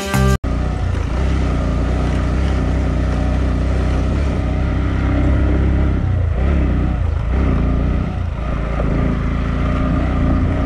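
Bajaj Pulsar NS125's single-cylinder engine running steadily as the motorcycle is ridden, its note dipping and picking up again a few times near the middle.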